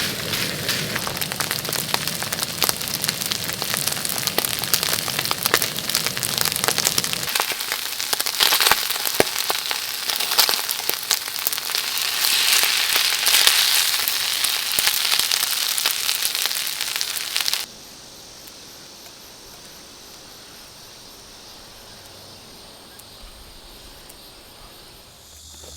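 Squid and beef brisket stir-frying in a hot pan: loud, dense sizzling and crackling that stops abruptly about 17 seconds in, leaving a faint steady background.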